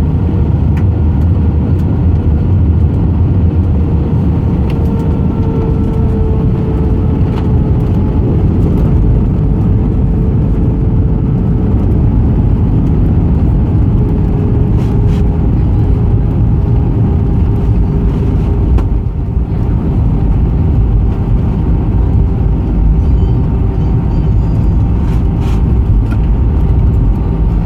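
Cabin noise of an Airbus A319 rolling on the ground just after landing: a steady, loud rumble of engines and wheels, with an engine tone that slowly falls in pitch.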